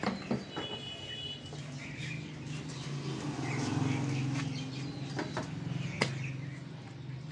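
Outdoor market background: a steady low hum that swells in the middle and eases off, scattered short high chirps, and a few sharp knocks, the sharpest about six seconds in.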